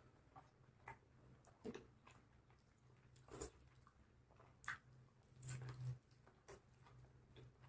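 Faint, irregular chewing and biting on a cooked chicken leg: scattered short wet crunches and smacks, the loudest a longer one about two thirds of the way through.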